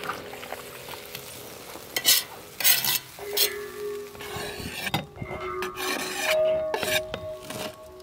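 A metal spoon or skimmer scraping and clinking against a kazan, stirring food that is sizzling in hot oil. There are several sharp scrapes from about two seconds in, over a steady sizzle.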